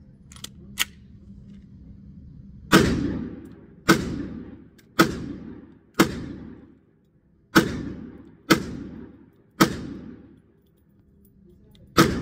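Kel-Tec PMR-30 pistol firing .22 Winchester Magnum Federal Champion 40-grain full metal jacket rounds: eight single shots roughly a second apart, with a longer pause before the last, each echoing in an indoor range. Before the shooting, a few light clicks as the pistol is handled after a rimlock jam.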